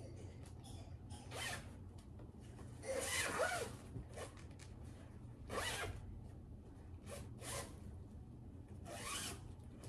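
Zipper on a bedding storage bag being pulled in about five short rasping strokes.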